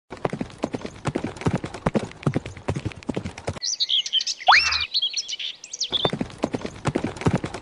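Animation sound effects: fast clattering hoof-like footsteps, broken about three and a half seconds in by two seconds of high bird-like chirps and whistles, after which the clatter resumes.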